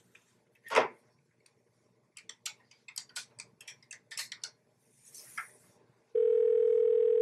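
Desk telephone being dialled: about a dozen sharp plastic clicks of the keypad buttons, a short rustle as the handset is raised, then a steady ringing tone in the earpiece for about two seconds near the end. A brief thump about a second in.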